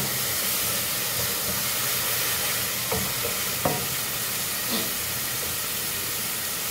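Garlic and onion sizzling steadily in hot oil in an aluminium pot, sautéed light for rice, while a wooden spoon stirs them, with a few light knocks of the spoon against the pot.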